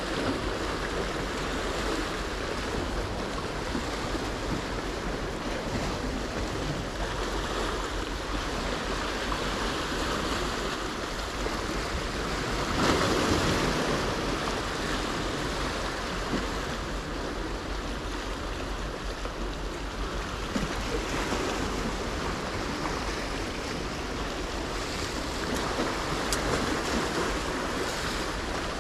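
Small sea waves washing and breaking over the boulders of a rock jetty, a steady hiss of surf. A louder wave washes in about halfway through.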